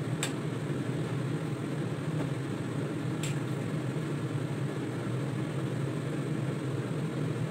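Steady low mechanical hum, with a metal ladle clinking twice against a stainless steel soup pot while stirring, just after the start and about three seconds in.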